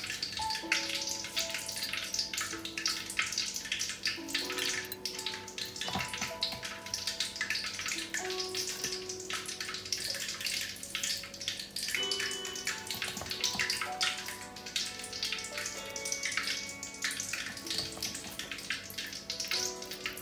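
Soft background music with a slow melody of held notes, over a steady crackling hiss of more pakoras deep-frying in oil.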